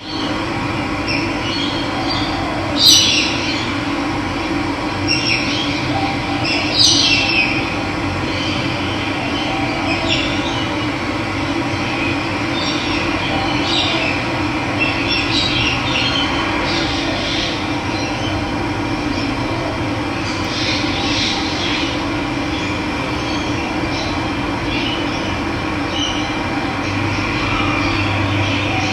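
Steady rush of running water, with birds chirping over it in short falling calls scattered through, the loudest twice in the first few seconds.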